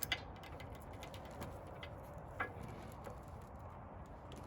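Metal chain clinking as a skidding chain is hooked onto a log, with a sharp clink right at the start and another about two and a half seconds in.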